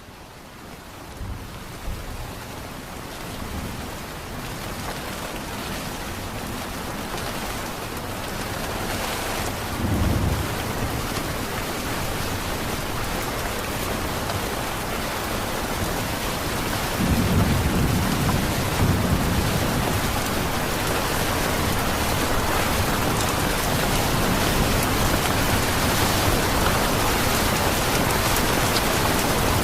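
Steady heavy rain, fading in over the first few seconds, with low rolls of thunder about ten seconds in and again around seventeen seconds in.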